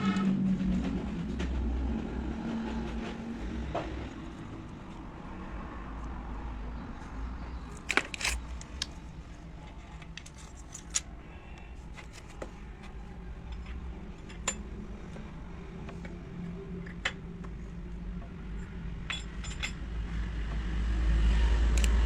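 Scattered sharp metallic clinks, a few in a quick cluster and then single ones every couple of seconds, over a steady low rumble.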